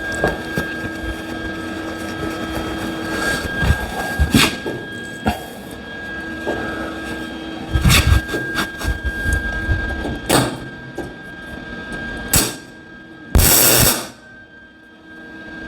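Welder laying short tack welds, a few brief crackling bursts with the longest near the end, with knocks between them and a steady background hum.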